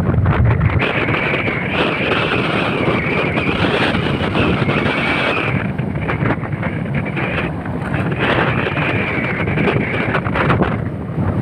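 Wind buffeting the microphone over the running engine of a moving motorcycle, with a high whine that wavers in pitch for a few seconds at a time.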